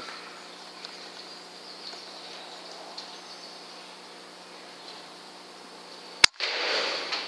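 A single sharp shot from a sub-12 ft-lb Weihrauch HW100 .177 pre-charged air rifle about six seconds in, followed by a brief noisy rush. Before the shot there is only a faint steady background.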